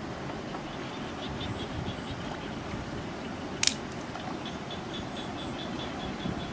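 Muddy shallow water sloshing and splashing as hands work in it, setting a bamboo fish trap into the channel bed, with one sharp click a little past halfway. Faint high chirps repeat several times a second in the background.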